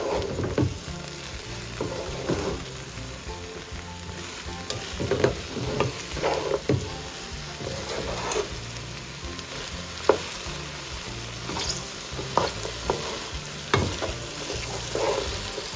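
Okra frying and sizzling in a pot as it is stirred, with a steady sizzle and irregular scrapes and knocks of the stirring utensil against the pot.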